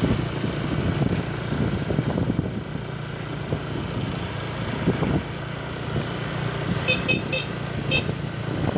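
Motor scooter engines running as the bikes ride along, with wind rumbling on the microphone. About seven seconds in comes a quick run of four short, high horn toots.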